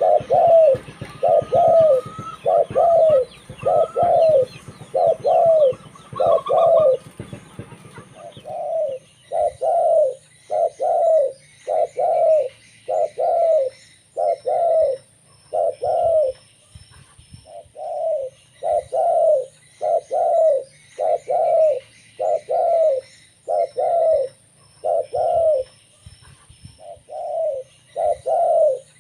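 Zebra dove (local perkutut) cooing in a long run of short notes, about one to two a second, broken by brief pauses about a third and two-thirds of the way through. Fainter chirps from other small birds sound above it.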